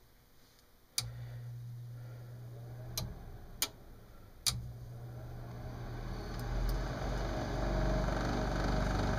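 Lennox furnace starting up: a click and a low steady hum about a second in, a few more sharp clicks, then from about six seconds the inducer fan motor spins up and runs with a rough, noisy grind that builds and holds. The noise is the sign of a failing inducer motor whose bearings are probably shot.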